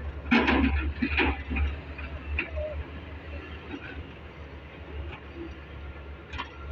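Excavator's diesel engine running with a steady low rumble, with a few knocks and clatters in the first second or so.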